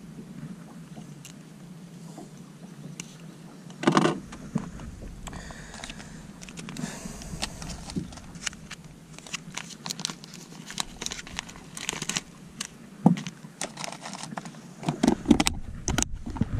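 Fishing tackle being handled by hand: small clicks, ticks and crinkling as a lure is worked on, and a clear plastic tackle box handled near the end. A louder knock comes about four seconds in.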